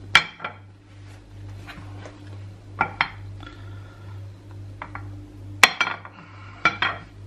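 Ceramic ramekins knocking and clinking against a ceramic serving plate as they are set down and moved about. There are sharp knocks, each with a brief ring: one just after the start, a pair around three seconds and three more in the second half. A low steady hum runs underneath.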